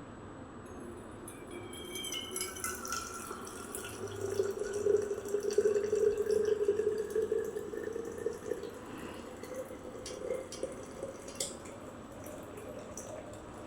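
Liquid pouring into a vessel. A tone rises slowly, swells loudest about a third of the way in, and fades near the end, with a few light clicks.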